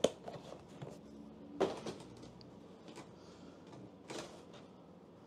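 A few soft knocks and clicks of a hand handling the black adjustable phone holder of an iPhone screen removal tool on a silicone repair mat: one at the start, one a little past a second and a half in, and a fainter one about four seconds in.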